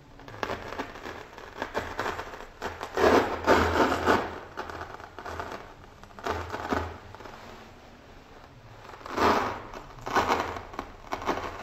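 Paper crackling and tearing as a thin blade is pushed through the sheet, in several uneven bursts, the loudest about three to four seconds in.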